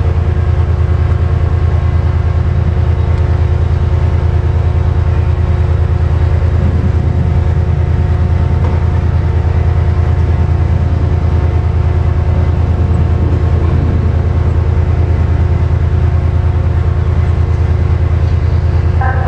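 Diesel train engine idling: a steady low drone with a constant hum above it.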